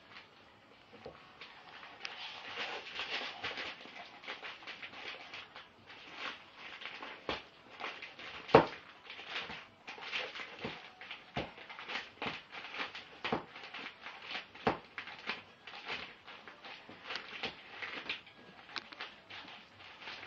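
A large dog chewing and tearing at a paper wrapper to get at the food inside: irregular crinkling and chewing clicks, with a few sharper, louder clicks here and there.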